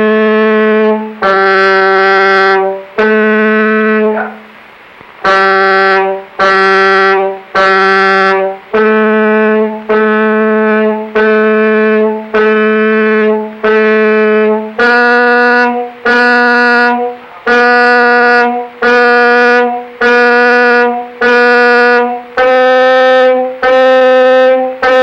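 A musical instrument playing single held notes of about a second each, one after another. The notes first alternate between two close pitches, then repeat one pitch, and about two thirds in move up a step and repeat. This is the kind of note sequence used in a pitch-discrimination exercise.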